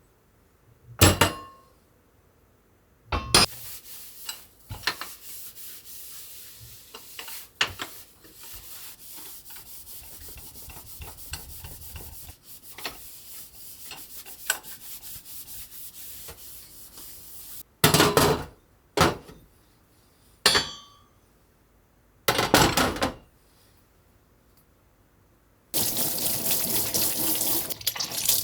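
Dishes being washed at a kitchen sink: dishes and utensils knock and clatter now and then, over a long stretch of quieter running. Near the end the tap comes on in a loud, steady rush of water.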